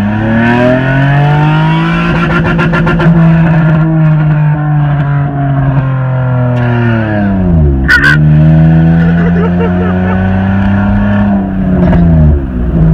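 Honda car engine accelerating hard with its exhaust cutout open, the unmuffled exhaust loud. Revs climb, hold, fall sharply about eight seconds in with a short pop, then build again and fall once more near the end.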